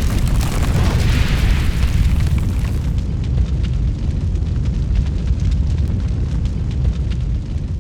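Loud, continuous deep rumble with fine crackling, with a rushing hiss over it for the first three seconds.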